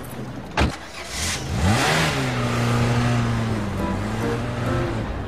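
A car door shuts with a thump. About a second and a half in, the small car's engine starts and revs up, then runs steadily as the car pulls away.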